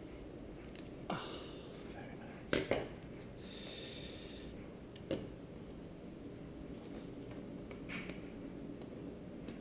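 Sparse small clicks and taps as a Nokia Lumia 900 smartphone is handled and pried apart with small tools on a table: four or so sharp clicks, two of them close together, with a short soft hiss in between.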